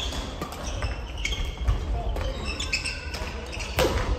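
Badminton rally: racket strikes on the shuttlecock as sharp cracks, a few times, the loudest near the end, with shoes squeaking on the wooden sports-hall floor.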